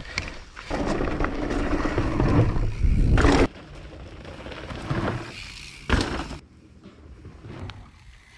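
Mountain bike riding down a dirt trail: tyres rolling and the bike rattling over the ground, loudest for the first few seconds, then quieter, with a sharp knock about six seconds in.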